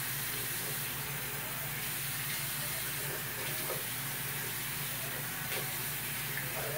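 Bathroom sink faucet running steadily, with faint small splashes as water is splashed onto a face to rinse off shaving cream.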